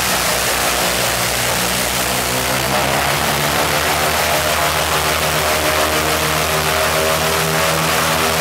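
Ilyushin Il-14's Shvetsov ASh-82T fourteen-cylinder radial piston engine running with its propeller turning, the engine note creeping slowly up in pitch.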